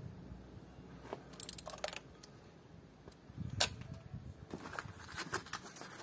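Spark-plug socket wrench and extension clicking and clattering against the engine. A few scattered clicks come first, then one sharp click about midway, and a run of quick rattling clicks near the end.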